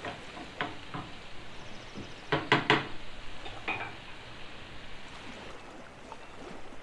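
Diced tomatoes sizzling in a frying pan as they cook down and release their juice, while a wooden spatula stirs and knocks against the pan. The loudest knocks come in a quick cluster about two and a half seconds in, and the sizzle turns fainter near the end.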